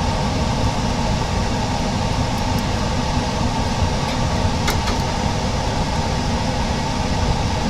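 Steady mechanical hum and hiss, like a fan or running machine, with one faint click about four and a half seconds in.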